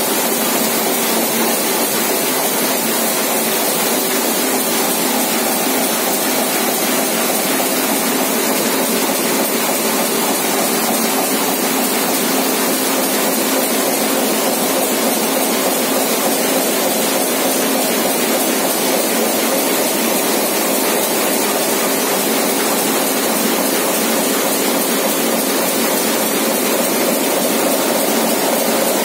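1986 Komori Lithrone 426 four-colour sheet-fed offset press running steadily, printing sheets. Its noise is an even, constant mechanical whir with a faint hum.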